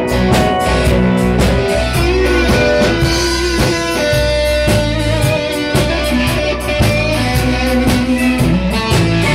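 Live rock band playing: electric guitar over bass and a steady drum-kit beat.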